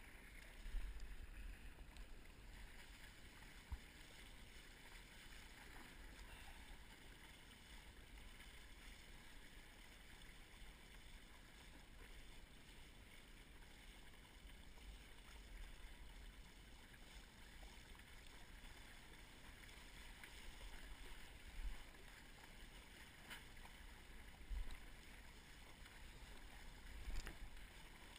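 Faint, steady wash of water along a windsurf board sailing through light chop, with low wind rumble on the microphone that swells in a few louder gusts, once about a second in and three times near the end.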